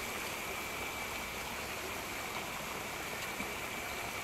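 Steady rushing, water-like noise at the edge of a prawn pond, with a thin steady high-pitched tone running through it.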